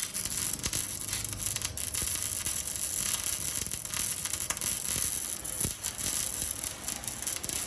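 MIG welding arc crackling and sizzling steadily as the wire feeds into the weld.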